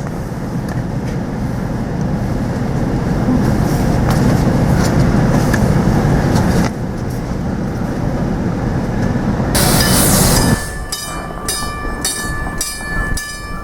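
A train passing close by, a heavy steady rumble. About ten seconds in the rumble drops away abruptly, leaving rhythmic wheel clacks about twice a second and a thin high squeal from the wheels.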